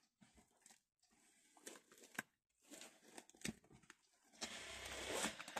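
Faint paper-craft handling: scattered light taps and rustles of paper, then about a second of soft rubbing near the end as a freshly glued piece of paper is smoothed down.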